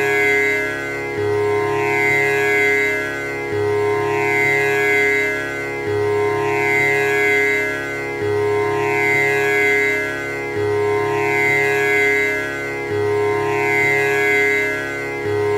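Tanpura drone: its strings plucked in turn in a steady repeating cycle, a little over two seconds per round, each round opening on the low string, the strings ringing on into one another so the drone never stops.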